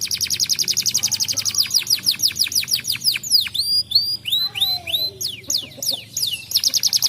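Domestic canary singing: a fast trill of rapidly repeated high notes, slowing in the middle into a series of separate downward-sweeping notes, then breaking back into a fast trill near the end.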